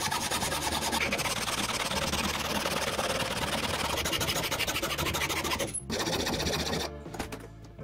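Electric jigsaw cutting aluminium sheet: a fast, even chatter of the reciprocating blade over the motor's hum. It stops briefly just before six seconds in, runs again for about a second, then ends.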